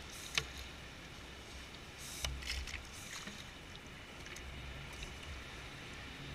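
Wind rumbling on the microphone over wet beach sand. A sharp click comes near the start, and a wet splash and slurp about two seconds in as the PVC ghost shrimp pump works water and sand in and out of the burrow.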